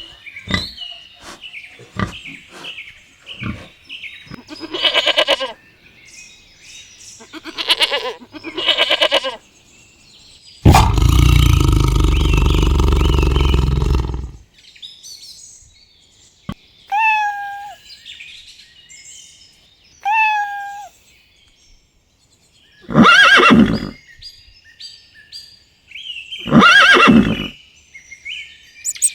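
A run of separate animal calls of different kinds: short chirps, a loud rough bellow lasting about four seconds near the middle, two short pitched calls, then two loud pitched cries near the end.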